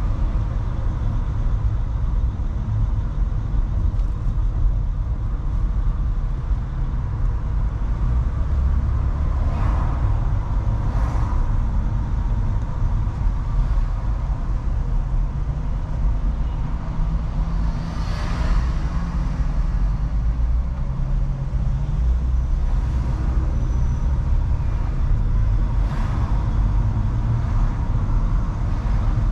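Steady low road and engine rumble of a Mercedes-Benz E-Class driving through city streets, with a few brief sounds of other traffic rising and fading about a third, two thirds and near the end of the way through.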